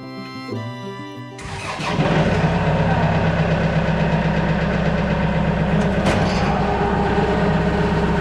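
Guitar music gives way, about a second and a half in, to a Kubota tractor's diesel engine starting up and then running steadily.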